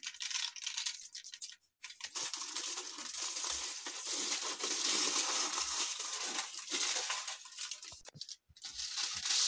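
Aluminium foil crinkling as hands roll a soft sweet mixture up inside it: scattered crackles at first, then a continuous rustle for about six seconds.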